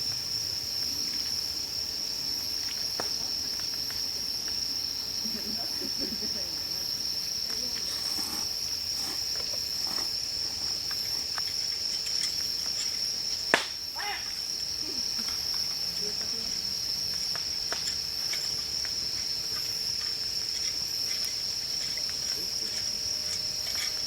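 Steady, high-pitched trill of night insects, with faint crackling from a wood-pellet fire in a Solo Stove and one sharp pop about halfway through.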